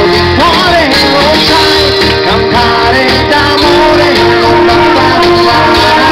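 Amplified pop backing track with a steady beat and bass under a melody of long held notes, with young women's voices singing along into handheld microphones between verses.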